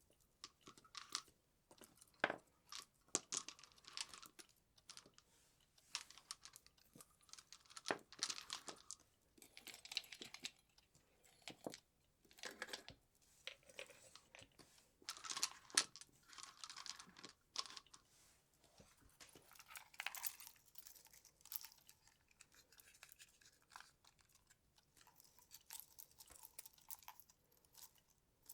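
Christmas tree decorations being handled by hand: irregular crinkling rustles and small clicks, in short bursts with brief pauses between them.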